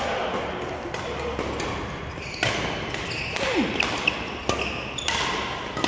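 Badminton doubles rally in a large hall: a string of sharp racket hits on the shuttlecock about half a second to a second apart from about two seconds in, with shoe squeaks and footsteps on the court floor.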